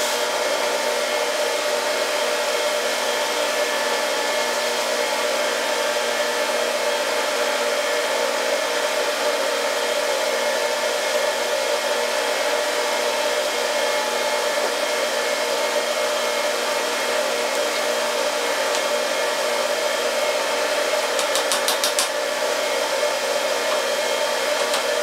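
Steady whir of a woodshop machine's electric motor and fan left running, with a short run of rapid ticks near the end.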